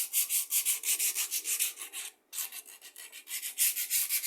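Coarse 80-grit sandpaper rubbed by hand on the wood of a rocking chair, in quick back-and-forth strokes about six a second. The strokes stop briefly about two seconds in, come back softer, and build to full strength again near the end.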